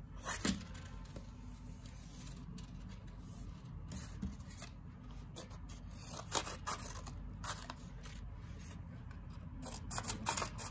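Scissors snipping, a few separate cuts with pauses between.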